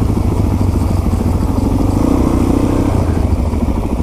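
Suzuki DR-Z400 dual-sport motorcycle's single-cylinder engine running steadily while riding along, heard from on the bike with wind rush.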